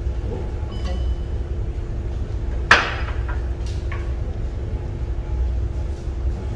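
Cooking at portable gas stoves: a steady low rumble under a single sharp clank of a utensil striking the wok about two and a half seconds in, followed by a couple of lighter clinks.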